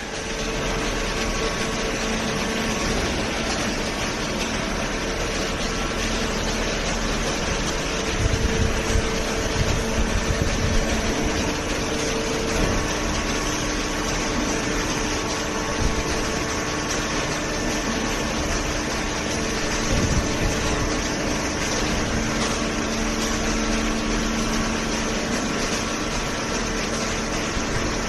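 Hydraulic cardboard baler running, its motor and hydraulic pump giving a steady mechanical hum, with a few louder knocks about a third of the way in.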